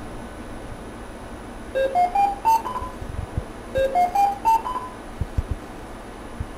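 A patient monitor sounding an alarm: a quick rising run of five beeping tones, played twice about two seconds apart. A few soft knocks come in between.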